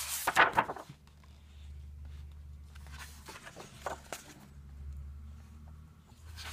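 Paper rustling as a coloring book is handled, loudest in about the first second, then a few light clicks and rustles, over a low steady hum.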